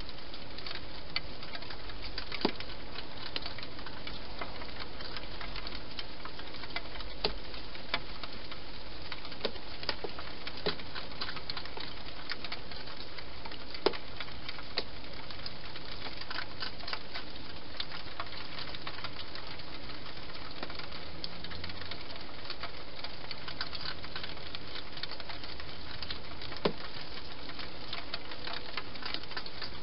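A hedgehog eating from a dish: irregular small clicks and crunches, a few sharper ones standing out, over a steady hiss.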